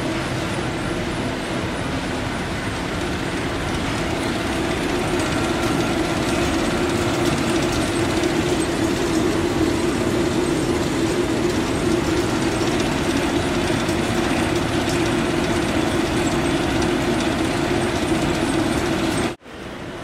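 Steady industrial machinery running: a constant mid-pitched hum under an even wash of mechanical noise, stopping abruptly near the end.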